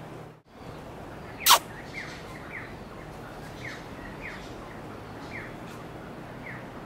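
A bird calling with a short, falling chirp repeated about every half second, over a steady outdoor hiss; one much louder, sharp call or click stands out about a second and a half in.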